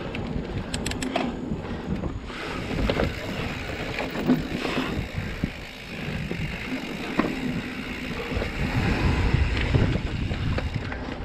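Mountain bike rolling fast over a dirt singletrack: tyre noise on the dirt and wind buffeting the camera microphone, with scattered clicks and knocks from the bike over the bumps.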